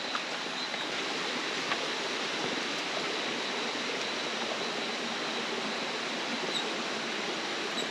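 Steady rushing of a rainforest stream below, an even hiss without breaks, with a thin steady high-pitched whine over it.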